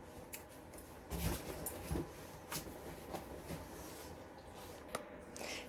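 A pet dog moving about close by: faint rustling and a few light clicks.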